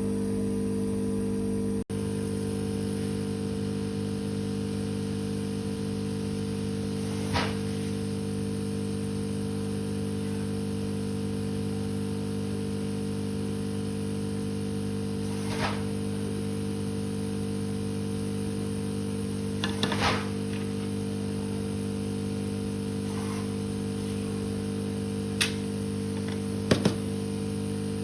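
A steady electric hum from repair-bench equipment, with a few light clicks and taps scattered through and a sharp double click near the end.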